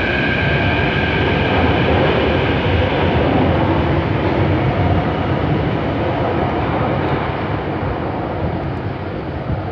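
CAF-built Frota P metro train pulling out of the station and running away down the track. The wheels rumble on the rails, and a high steady whine fades in the first couple of seconds. The rumble grows loudest a few seconds in, then slowly dies away as the train recedes.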